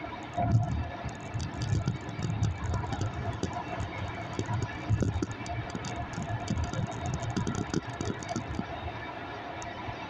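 Rumble and road noise of a moving vehicle heard from inside, uneven and continuous, with many small rattles and ticks.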